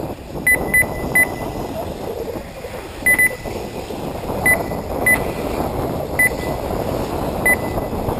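RC race lap-timing system beeping: about nine short, identical high beeps at irregular intervals, each one a buggy crossing the timing loop. Underneath is a steady noisy background.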